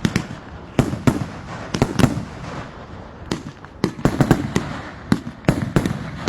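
Consumer fireworks going off in rapid succession, a string of sharp bangs at irregular intervals over crackling, with dense clusters about a second in and again in the second half.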